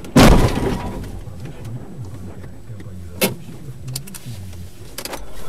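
Car-to-car collision heard from inside the dashcam car: one loud impact just after the start, fading over about a second. A sharp click follows about three seconds in, over a steady low engine hum.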